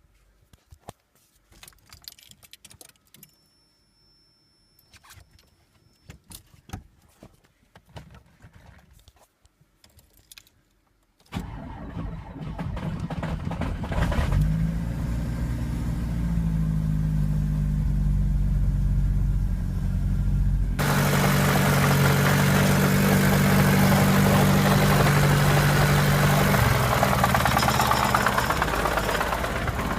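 Faint clicks and handling noises, then about eleven seconds in a turbocharged VAZ-2104 engine is started and runs, its pitch stepping up and shifting a few times. It carries the engine knock the owner is trying to trace, with a good timing chain, a new tensioner and twice-adjusted valves already ruled out.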